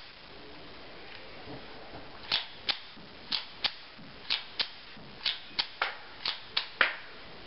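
Advantage Arms .22 conversion slide on a 1911 being racked by hand, cycling dummy rounds from a Colt metal-form magazine. About five groups of two or three sharp metal clicks, roughly a second apart. The last and strongest comes as the slide locks open on the empty magazine.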